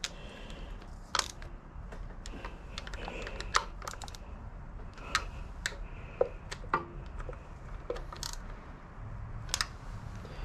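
Ratchet wrench and socket being worked on a timing belt pulley bolt of a 2JZ-GTE engine: scattered, irregular sharp clicks and taps of the metal tools.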